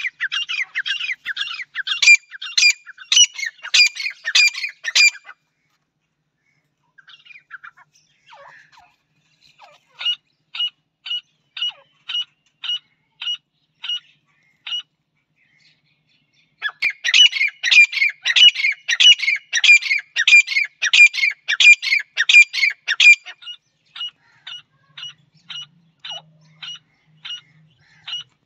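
Grey francolin (teetar) calling: two loud runs of rapid, repeated shrill notes, each lasting about five or six seconds, with fainter, evenly spaced single notes between and after them.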